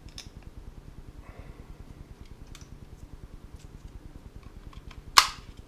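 Light plastic handling clicks from a Logitech G903 mouse being turned over in the hand, then, about five seconds in, one sharp click as its magnet-held weight cover snaps back into place.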